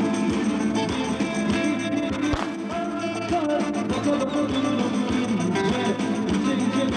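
Music with guitar playing steadily throughout.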